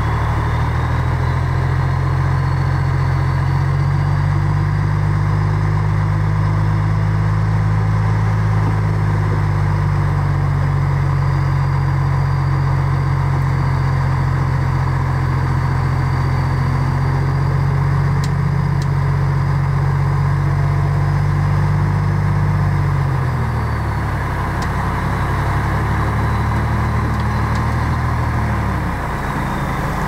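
Diesel engine of a heavy earthmoving machine running steadily, with a faint high whine. About three-quarters of the way through the engine note drops, as if throttling back, then climbs again near the end.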